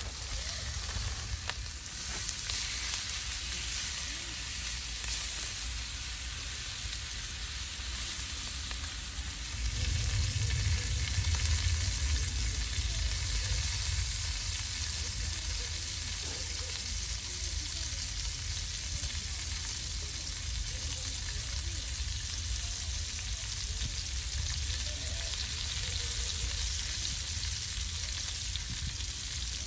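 Pork belly sizzling steadily on a grill over a small wood brazier. A low rumble swells for a few seconds about a third of the way in.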